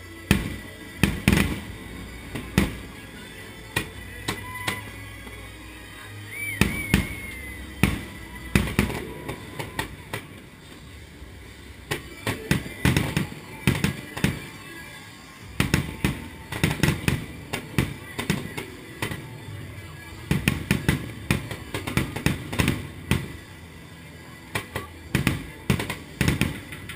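Aerial fireworks shells bursting overhead in a long run of loud bangs, some single and some in rapid clusters of crackling reports, with short gaps between the volleys.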